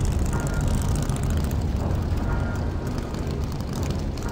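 Harley-Davidson Softail V-twin motorcycles running at a steady cruise, their exhaust a dense low rumble with no clear revving.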